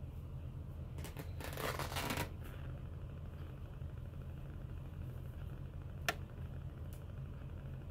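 Cotton shirt fabric crackling and straining as it is yanked hard by hand, in one burst lasting just over a second. A sharp click follows about six seconds in, and a fainter one shortly after, over a steady low room hum.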